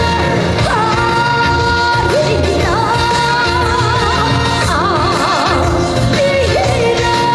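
A woman singing a trot song live over a band backing with a steady beat. She holds long notes with a wide, wavering vibrato.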